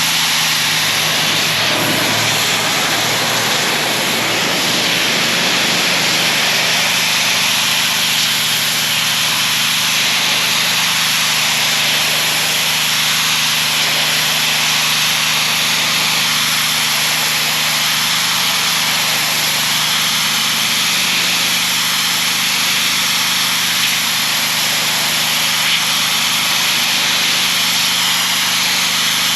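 Gas-engine pressure washer running steadily: the small engine drones underneath while the water jet hisses against a retaining wall, blasting off dirt and algae.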